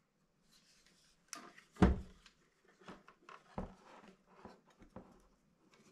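Clicks and knocks of a G&G PRK9 airsoft gun being handled while a battery is tried inside it. There is one loud sharp knock about two seconds in, a second knock a little later, and smaller clicks between them.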